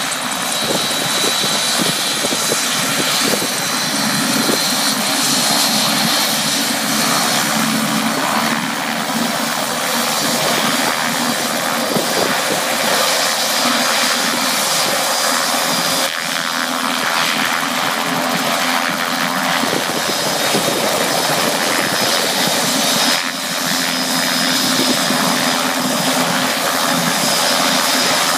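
Light turbine helicopter of Bell 206 JetRanger type running on the ground: steady engine noise with a thin high whine held throughout.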